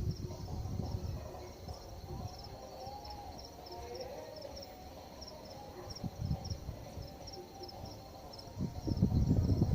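Insects chirping in a steady rhythm, about two high chirps a second. A low rumble of wind on the microphone fades after the start and swells again near the end.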